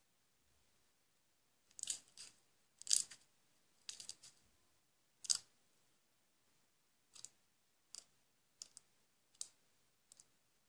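Blue glitter slime being squeezed and poked by hand, giving about a dozen short, sharp sticky pops and clicks at irregular intervals, the loudest in the first half. It is heard faintly, as played back from a screen's speaker.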